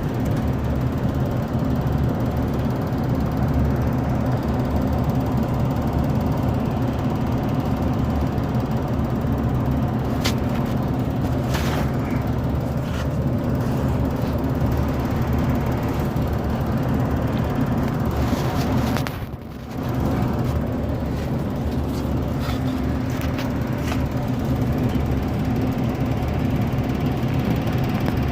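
Steady low mechanical hum of a running furnace, with a few light clicks and knocks from handling the plastic drain tubing.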